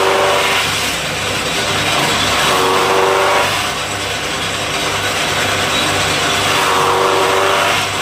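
Electric chaff cutter running loud and steady, its motor humming and its blades chopping green fodder grass as it is fed in. The level rises and falls a little.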